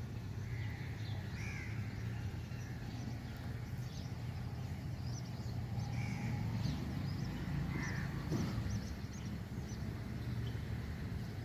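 Birds calling now and then, short scattered calls over a steady low background rumble.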